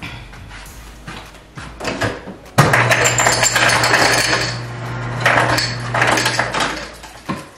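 Refrigerator door ice dispenser running for about four seconds, starting suddenly a couple of seconds in: a steady motor hum under ice cubes clattering down into a cup.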